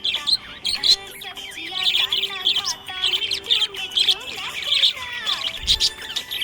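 Budgerigars chirping and warbling in rapid, continuous chatter of short high chirps and quick pitch glides.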